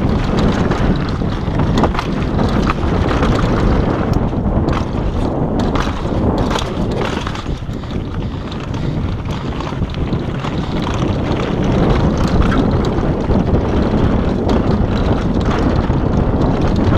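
Wind buffeting the microphone on a fast downhill mountain-bike run, over the rumble of the tyres on a dirt forest trail, with scattered sharp knocks and rattles from the bike over bumps.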